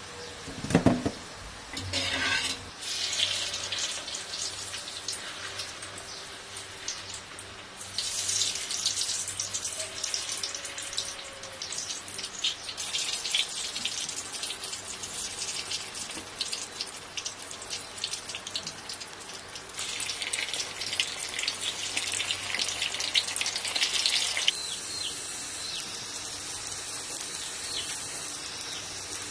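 Water running and splashing in several stretches that start and stop abruptly, with a sharp knock about a second in.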